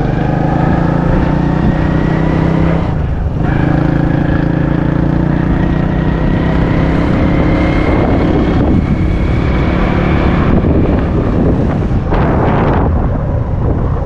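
Vehicle engine running at a steady pace while travelling, its pitch rising slowly, with a brief dip about three seconds in. Wind buffets the microphone.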